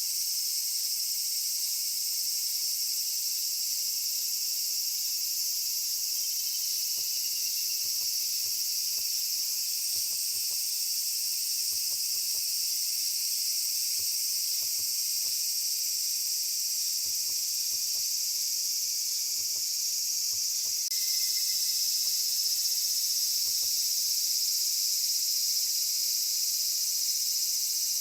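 A dense, steady, shrill insect chorus in several high bands. It grows a little louder about three-quarters of the way through as another insect joins.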